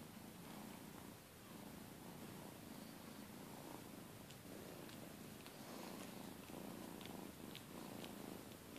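Domestic cat purring steadily, with a few faint clicks in the second half.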